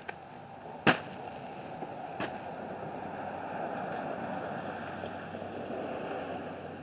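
A boxed bale of wood shavings, thrown down from a pickup bed, lands with a sharp thump about a second in, and a lighter knock follows a second later. A steady rushing noise then swells for a few seconds.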